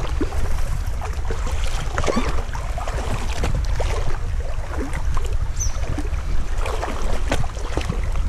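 Wind rumbling on the microphone, with many small scattered clicks and knocks.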